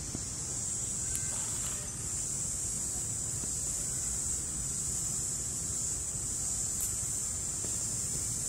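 Steady, high-pitched drone of insects in the trees, over a low wind rumble on the microphone, with a couple of faint ticks.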